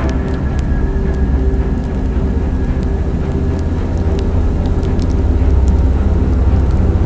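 Steady low engine drone with scattered faint clicks and crackles.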